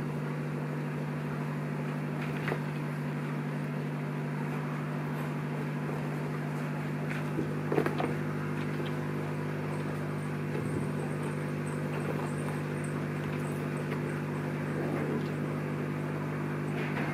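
Steady electrical hum made of several even tones, with a few soft knocks and rustles from Bengal kittens playing in loose backdrop fabric. The sharpest knock comes about eight seconds in.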